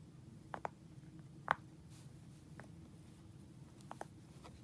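Scattered soft clicks and pops from a silicone push-pop fidget toy being pressed by fingers, about eight in all, a few in quick pairs and one louder pop about a second and a half in.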